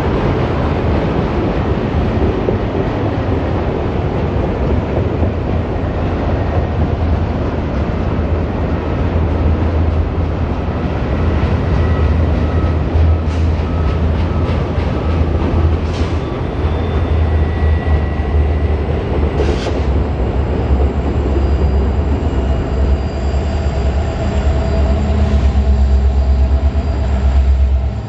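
Norfolk Southern freight train rolling past: a loud, steady low rumble of the cars on the rails, with a few sharp clicks near the middle. A steady hum joins in during the last third.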